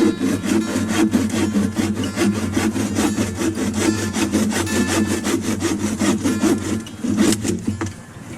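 Hand saw cutting through wood in fast, regular back-and-forth strokes, which stop near the end.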